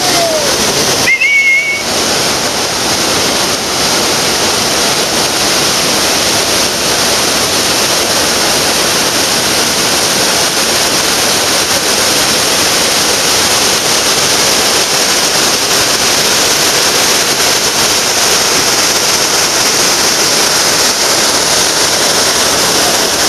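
Steady, loud roar of whitewater pouring over a rocky waterfall and rapids, an even rushing noise throughout.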